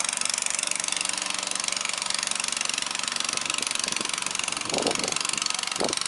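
Small engine of a vỏ lãi longtail boat running steadily under way, with a fast even pulse.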